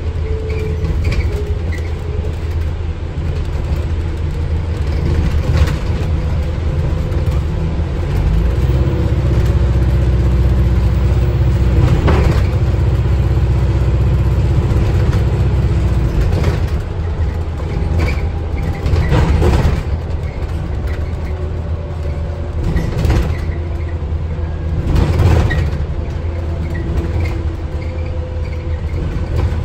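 Interior of an Alexander Dennis Enviro400H MMC hybrid double-decker bus on the move: a steady low rumble with a faint whine that drifts in pitch. A few loud knocks from the bus body come about twelve, nineteen and twenty-five seconds in.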